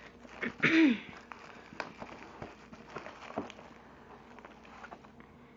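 Bubble wrap and plastic packaging crinkling and crackling as items are pulled from a cardboard box, in scattered small clicks. A brief voice sound with a falling pitch comes about a second in.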